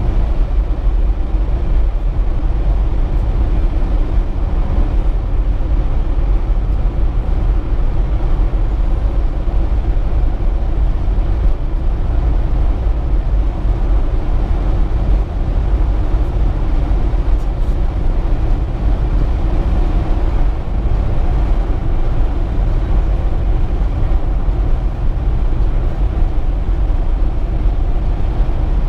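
Car driving at highway speed, heard from inside the cabin: a steady low rumble of engine and tyres on asphalt.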